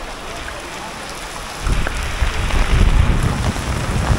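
Steady rain falling on a wet street. About a second and a half in, a loud low rumble sets in and carries on under the rain.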